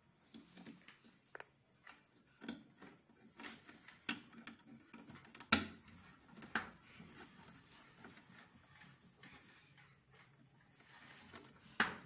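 Hands working at a washing machine's drain motor and its wiring connector: faint, irregular clicks and light plastic knocks, with a sharper click about five and a half seconds in and another near the end.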